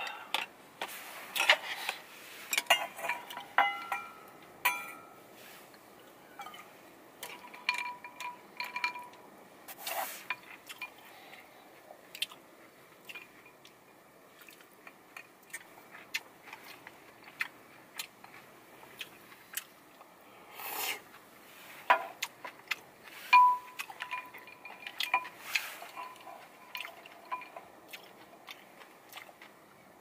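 Tableware clinking and tapping: chopsticks and a wooden spoon knocking against a ceramic bowl and a stainless steel bowl while food is served and eaten. Scattered short taps throughout, a few of them clinks that ring briefly.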